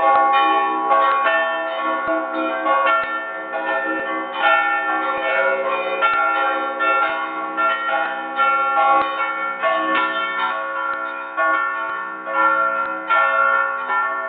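Several church bells ringing a full peal together, heard from inside the belfry, hand-rung with chains in a fast, unbroken pattern of overlapping strikes. A deeper strike falls about once a second under the quicker higher bells.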